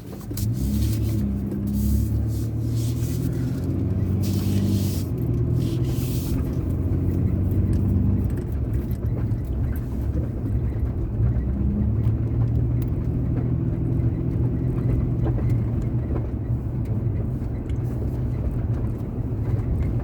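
Nissan Frontier pickup driving, heard from inside the cab: steady engine and road rumble, the engine note shifting pitch a few times as it pulls away after a three-point turn.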